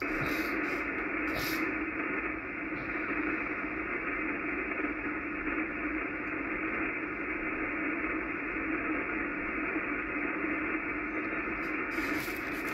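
80 m band noise from an Icom IC-746PRO HF transceiver receiving in lower sideband: a steady hiss with no station talking, dull and cut off above the voice range by the sideband filter. It cuts in suddenly at the start.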